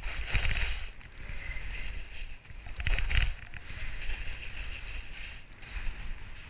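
Skis hissing through snow during downhill turns, swelling and fading with each turn, loudest about half a second in and about three seconds in, with wind rumbling on the microphone.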